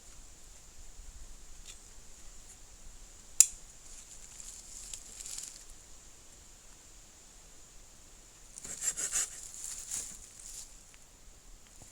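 A single sharp click, then a few short rasping strokes of a hand saw cutting wood about three-quarters of the way in.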